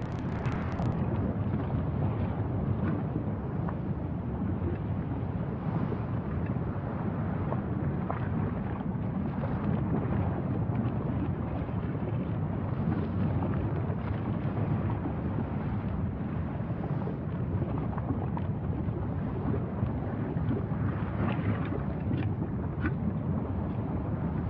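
Steady low rumbling noise with no pitch, heaviest in the bass, with a few faint ticks near the end.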